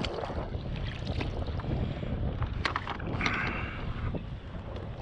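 Strong wind buffeting the microphone in a steady low rumble, with a few sharp knocks and a brief rasp around the middle.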